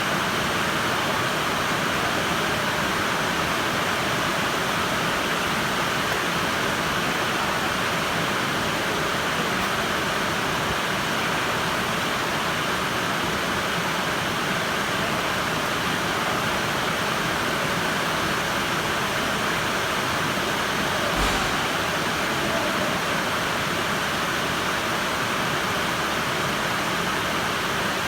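Steady rain heard from inside a building, an even rushing hiss. One soft thump about two-thirds of the way through.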